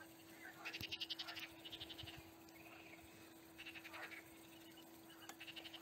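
Faint frogs calling: about four short trains of rapid clicking croaks, each about half a second long, over a faint steady hum.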